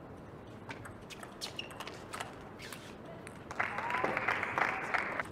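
Arena crowd clapping and cheering between table tennis points, starting about three and a half seconds in and cutting off abruptly. Before it, only a few sharp clicks over a quiet hall.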